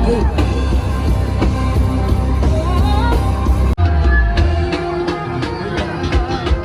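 Go-go band music with singing over a heavy bass. The sound breaks off abruptly about four seconds in and carries on with a different sound.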